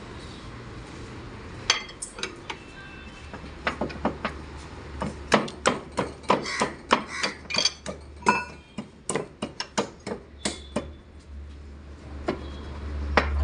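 A run of sharp metal-on-metal knocks and clinks with a short ring as a steel bar strikes and levers against the gears and parts inside the open rear-axle gear housing of an Eicher 5660 tractor. The knocks come irregularly, a couple a second, thickest in the middle.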